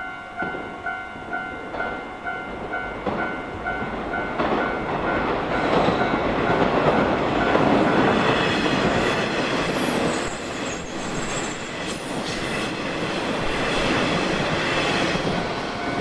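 A Japanese railway crossing bell dings in a steady rhythm, about two or three strikes a second. About four seconds in, a Nishitetsu electric train passes over the crossing and drowns it out. The train's wheels clatter and its noise swells, with a high whine through the middle as it goes by.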